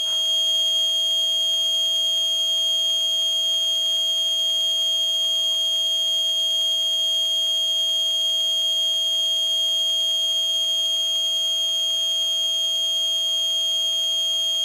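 Passive piezoelectric buzzer driven by a homemade oscillator, fed the signal of a self-flashing LED. It gives out a loud, steady, high-pitched screech, with a weaker lower tone beneath it.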